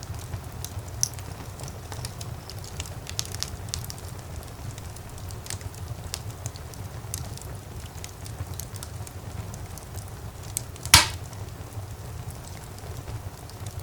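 Wood fire crackling in a fireplace: scattered small crackles over a steady low rumble of the flames, with one loud sharp pop about eleven seconds in.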